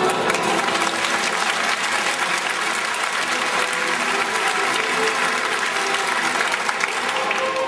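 Circus audience applauding, a dense steady clapping.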